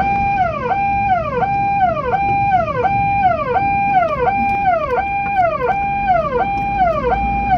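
Electronic ambulance siren sounding a repeating cycle: a steady tone held briefly, then a quick fall in pitch, about three cycles every two seconds.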